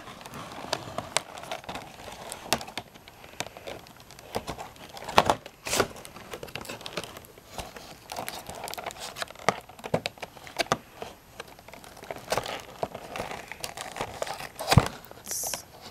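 Crinkling and rustling of a cardboard toy box and its packaging as it is handled and pried open at the taped flap, with scattered sharp clicks and taps and a brief high scrape near the end.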